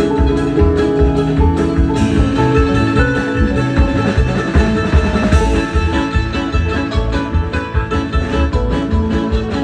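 Acoustic string band playing an instrumental break between sung verses: plucked strings picking over a steady rhythm, with no singing.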